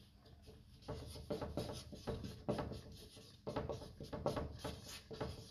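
Felt-tip marker writing capital letters on a large paper sheet mounted on a board: a run of short, irregular squeaks and scrapes, one per stroke, starting about a second in.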